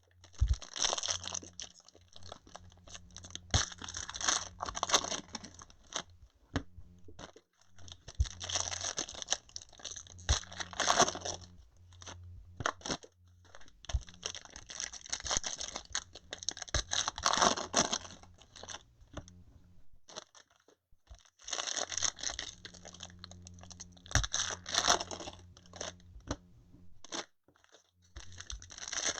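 Plastic trading-card packaging crinkling and tearing in repeated handfuls, with sharp clicks and crackles between them.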